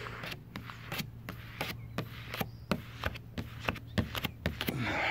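Hard plastic card being worked over tint film on the glass of a car's rear window as the film is shrunk to the curve: irregular sharp clicks and taps with rubbing, over a steady low hum, and a longer rub near the end.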